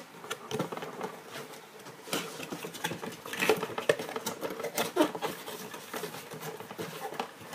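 Cardboard packaging being opened and handled: box flaps and an inner cardboard insert scraping, rustling and knocking in irregular bursts.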